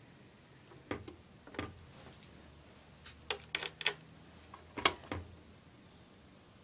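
Scattered sharp mechanical clicks: two in the first two seconds, a quick run of four in the middle and the loudest one near the end, over a faint low hum.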